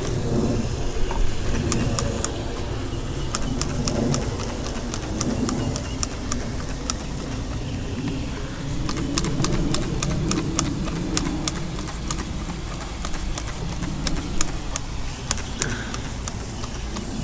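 Hand trigger sprayer being pumped again and again, spraying degreaser onto an outboard engine: irregular sharp clicks, thickest about halfway through, over a steady low rumble.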